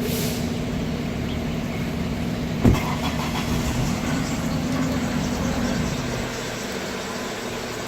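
Car engine running, heard from inside the car, with a single sharp thump about two and a half seconds in; the hum eases a little near the end.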